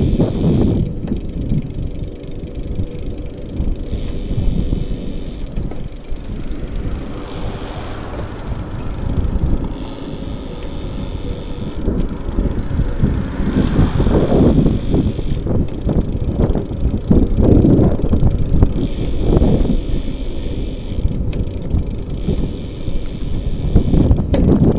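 Wind buffeting the microphone of a bicycle-mounted action camera as the bike rolls along an asphalt street, a steady low rumble with louder swells. A car passing adds to the noise around the middle.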